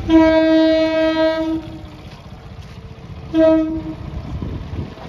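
Electric train's horn sounding two blasts: a long one of about a second and a half, then a short one about three seconds in, a single steady note over a low rumble.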